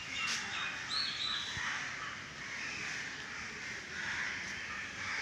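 Crows cawing again and again, with a few short high whistled notes in the first second or so.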